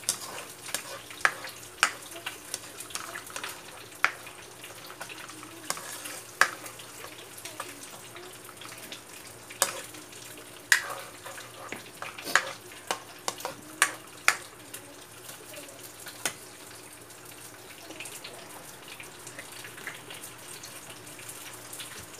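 Spatula knocking and scraping against a wok while stirring a simmering sauce: a dozen or so sharp clinks, spread over about the first two-thirds and then stopping. Under them, the sauce bubbles with a steady, soft hiss.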